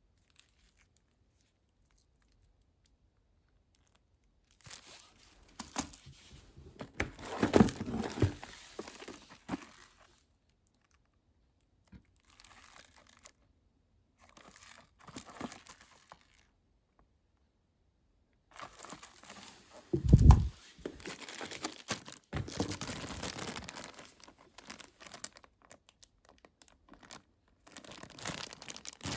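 Firecracker packaging being torn open and handled: irregular bursts of tearing and crinkling with pauses between them, starting after a few quiet seconds. About two thirds of the way through there is one dull thump, the loudest sound.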